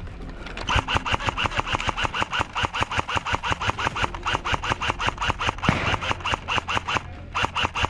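Airsoft gun firing a long string of shots, about seven a second, with a brief break near the end before firing resumes.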